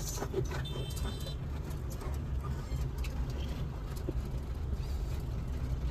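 Steady low rumble of a truck's engine and road noise, heard from inside the cab as the truck moves into a toll plaza lane.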